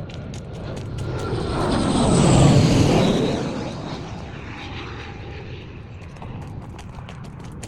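Aircraft passing over, its engine sound swelling to loudest about two and a half seconds in, then fading away.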